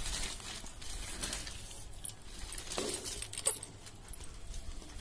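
Light clicks and rattling of the plastic toys on a baby walker's tray as a baby handles them, over a low steady rumble.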